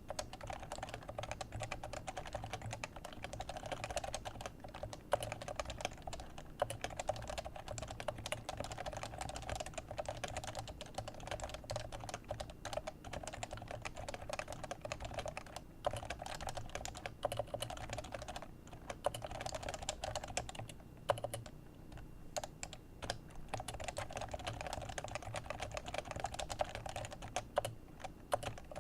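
Leopold FC660c keyboard with Topre 45g electrocapacitive switches being typed on steadily and quickly, a dense run of soft keystrokes with a few brief pauses.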